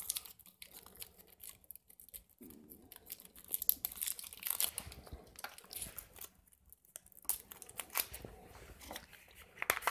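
Plastic battery wrapping being torn and crinkled open by hand, in short, irregular crackles and light clicks with pauses between them.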